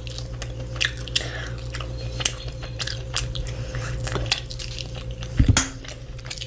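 Close-miked eating: crisp crunching bites and chewing, a rapid run of sharp crackles, over a steady low hum. A louder low thump comes about five and a half seconds in.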